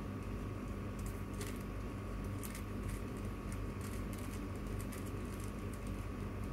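Plastic 3x3 Rubik's cube being turned by hand, its layers clicking in quick irregular bursts over a steady low hum.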